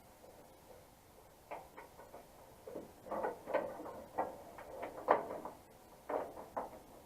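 Irregular light clicks and knocks of wiring connectors and door parts being handled while the wiring is routed inside a pickup truck door. They start about a second and a half in.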